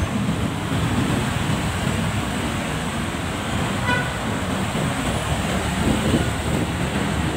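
Steady traffic and engine rumble heard from a motorcycle filtering between slow-moving cars, with a short vehicle horn toot about four seconds in.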